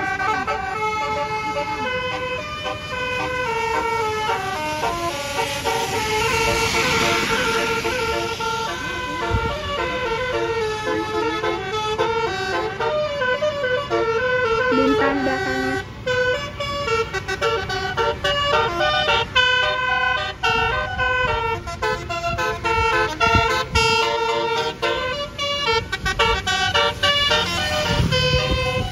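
Bus basuri telolet horn, a set of air-horn trumpets, playing a stepping melody of several tones at once, note after note. A rushing noise swells and fades around six to eight seconds in.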